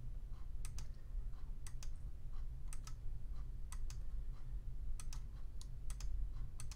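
Computer mouse clicking as digitizing points are placed: sharp clicks about once a second, often in quick pairs, over a steady low hum.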